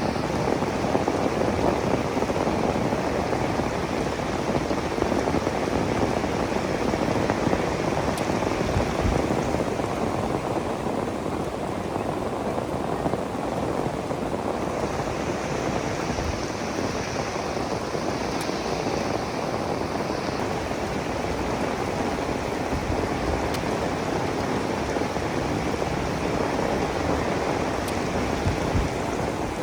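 Steady rain falling, an even, dense hiss; a brighter, higher hiss swells in for a few seconds about halfway through.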